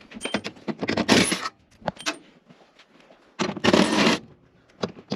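Metal-on-metal scraping and clinking as 5/16 screws are backed out of the furnace's sheet-metal inducer fan and flue mounting. There are two louder scraping bursts, about a second in and again past the middle, with small clicks between them.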